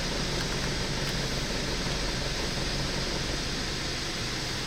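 Steady road and engine noise inside a car while driving, an even hiss over a low rumble.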